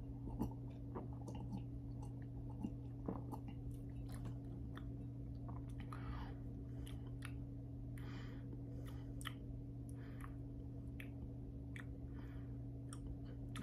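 Faint mouth sounds of someone tasting a sip of a fizzy drink: swallowing, lip smacks and a few small clicks, with a couple of soft breaths, over a steady low hum.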